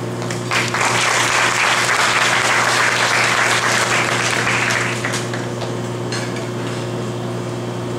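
Audience applauding, starting about half a second in and dying away after about five seconds, over a steady low hum.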